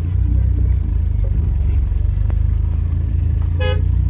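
Car engine and road rumble heard from inside the cabin while driving, steady and low. Near the end a brief single horn toot.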